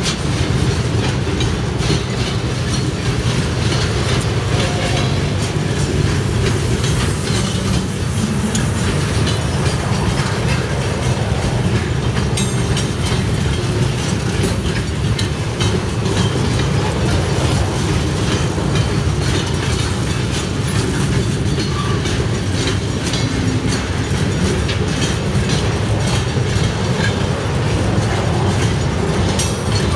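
Loaded mineral hopper wagons of a freight train rolling past: a steady low rumble with the clatter of steel wheels on the rails.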